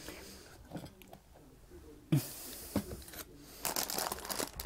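A few handling knocks, then a plastic bag of iceberg lettuce crinkling and rustling from about three and a half seconds in as it is picked up and handled.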